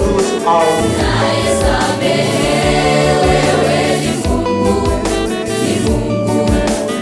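Gospel choir music: several voices singing held notes over a steady beat.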